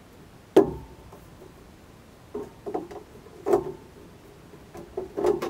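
Knocks and bumps of a foam-core composite floor panel being handled and set into a fibreglass boat hull: one sharp knock about half a second in, then a run of smaller knocks, some with a short ring.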